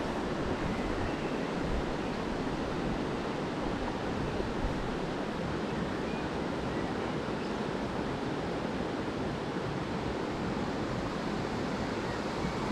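Shallow river current running a little high, flowing and rippling over stones: a steady rushing of water.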